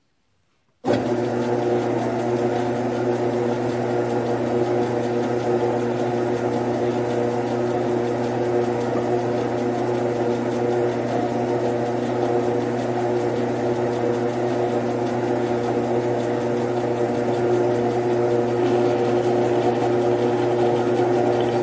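Grizzly G9972Z bench lathe switched on about a second in, its motor and gear train then running steadily with a whine, while it is set up for cutting a 7/16-20 thread.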